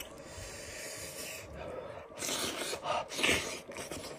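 Hands tearing and rubbing meat apart from a steamed sheep's head, with two short, louder breathy sounds about two and three seconds in.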